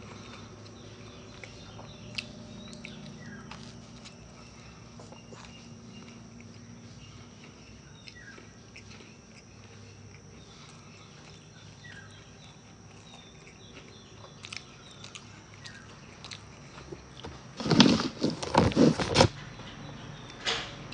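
Eating sounds: faint mouth clicks and chewing over a low steady hum, then a short run of loud crackles about eighteen seconds in, lasting under two seconds.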